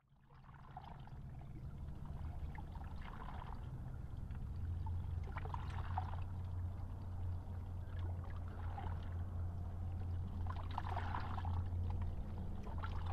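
Water sounds: soft, irregular splashes and trickles every two or three seconds over a steady low rumble that fades in from silence at the start.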